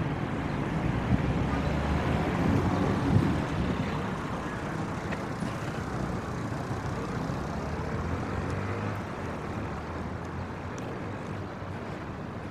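City street traffic: a motor vehicle passes close by, loudest about three seconds in, and the traffic noise then eases off to a steadier, lower rumble.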